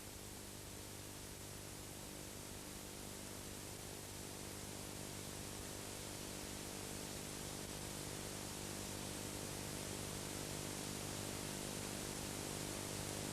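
Steady hiss with an electrical hum underneath, growing slowly a little louder: the recording's noise floor after the song has ended.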